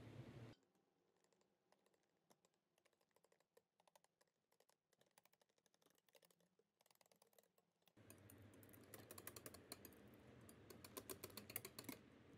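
Wire balloon whisk stirring a thin egg-yolk and milk mixture in a glass bowl while whipped egg whites are folded in. Its wires tick faintly and rapidly against the glass. The ticking gets louder and busier about eight seconds in.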